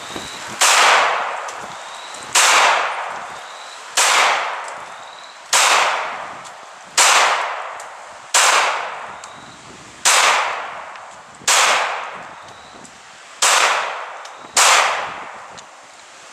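Ten single 9 mm pistol shots from a custom Glock 19, fired one at a time about a second and a half apart. Each is a sharp crack that trails off over about a second.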